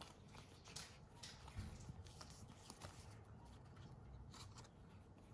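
Very faint soft slides and light ticks of glossy baseball cards being flipped through by hand, one card moved past the next, over near-silent room tone.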